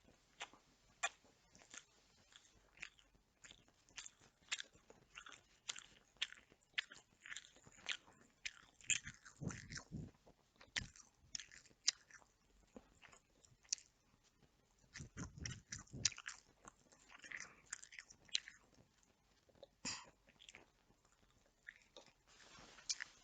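A person chewing and biting chicken, a close run of short mouth clicks and bites, busier about ten seconds in and again around fifteen seconds.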